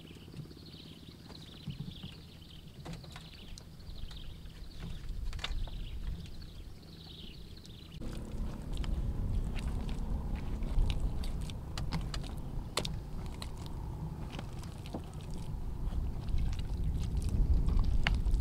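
Hands scooping and squeezing wet mud in a plastic tarp sack: squelches, tarp crinkles and sharp clicks, starting about eight seconds in, over a steady low rumble. Faint high chirps repeat in the quieter first half.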